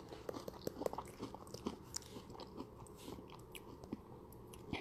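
Faint scattered clicks and small crackles, close to the microphone.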